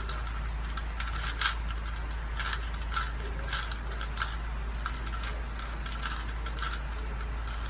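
A plastic Rubik's cube being turned by hand, its layers clicking in quick, irregular succession, about two clicks a second, over a steady low hum.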